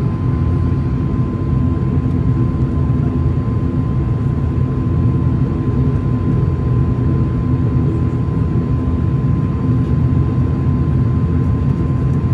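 Twin turboprop engines of an ATR 72-600 running steadily, heard from inside the passenger cabin: a low, even drone with a steady higher tone above it.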